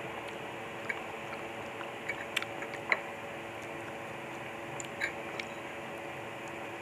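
Close-up eating sounds of lomi noodle soup: a few short wet clicks and squishes from spoon and mouth, grouped around two to three seconds in and again about five seconds in, over a steady background hiss.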